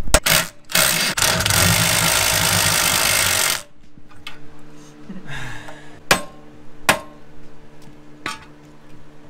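Hammer blows on metal near the start, then a power tool running loud and steady for about three seconds before cutting off abruptly, then three more single hammer strikes spaced about a second apart.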